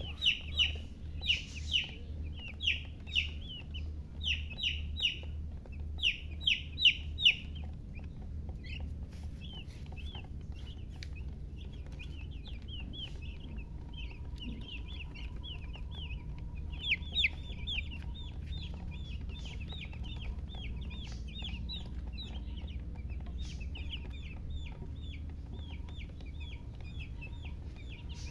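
Baby chicks peeping: many rapid, high, downward-sliding peeps, loud and in clusters for the first seven seconds or so, then a softer continuous chorus, over a steady low hum.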